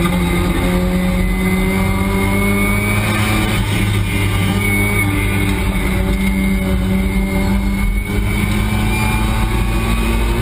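Race car engine heard from inside the cockpit while lapping the circuit: the engine note sags as the car slows into a corner, holds steady through it with a brief dip about eight seconds in, and starts to climb again near the end as the car accelerates.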